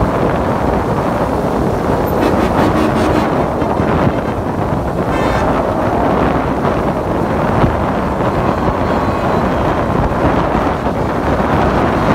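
A steady stream of cars and pickup trucks driving past on a wet road: engines and tyre noise off the wet pavement, mixed with wind buffeting the microphone.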